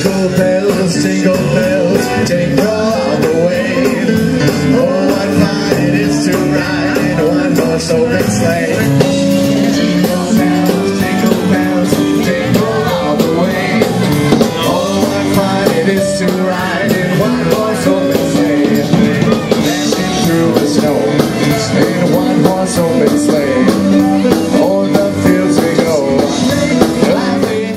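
Rock band music with a singer and a steady drum beat, stopping abruptly at the end.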